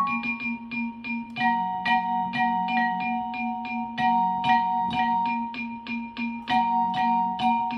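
Digital piano played with both hands: a steady run of short treble notes, about three or four a second, over held chords that change a couple of times.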